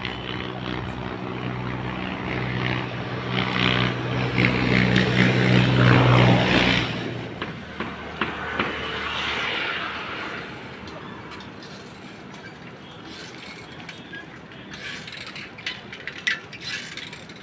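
Motor vehicle engine running, its steady hum building to a peak about six seconds in, then cutting off suddenly about seven seconds in. Afterwards a few sharp clicks.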